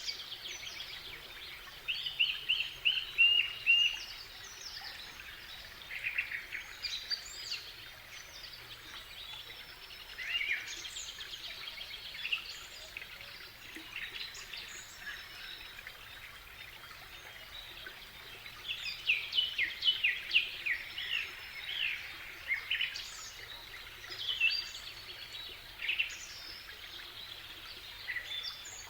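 Outdoor nature ambience of several birds singing and chirping over a steady faint hiss, with a quick run of about six repeated notes near the start and a dense flurry of calls about two-thirds of the way through.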